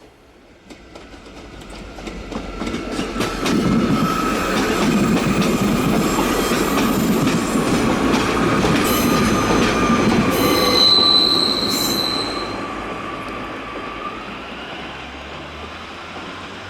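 A Class 143 Pacer railbus passing: the sound builds up, runs loud for several seconds with its wheels clicking over the rail joints, then fades away. A high wheel squeal comes in near the end of the loud part.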